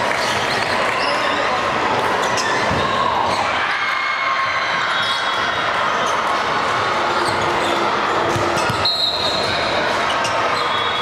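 Echoing ambience of a busy volleyball gym: volleyballs being hit and bouncing on hardwood courts, with scattered impacts over a steady murmur of voices in the large hall.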